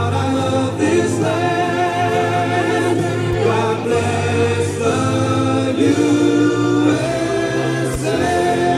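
Music with a choir singing over steady held low notes.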